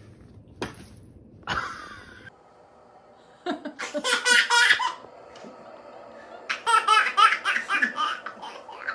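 Laughter in two stretches of short bursts, the first about three and a half seconds in and the second near the end. The later stretch is a baby laughing out loud.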